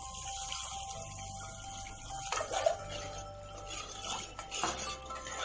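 Hot water poured into a pot of spiced tomato base, splashing for about two seconds. A steel ladle then clinks and scrapes against the pot while stirring, with one sharper knock. Soft background music with steady tones plays underneath.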